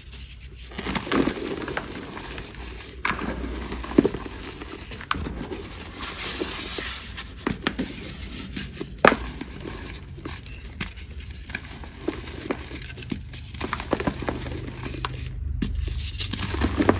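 Blocks of gym chalk (magnesium carbonate) being broken apart and crumbled by hand into loose chalk powder: dry, dusty crunching with sharp cracks as pieces snap, scattered through, and soft powdery rubbing between them.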